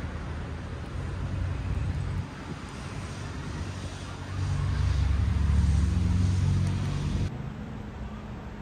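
Street traffic rumble, with a motor vehicle passing close and loudest about five to seven seconds in. The sound changes suddenly about seven seconds in, to a quieter steady hum.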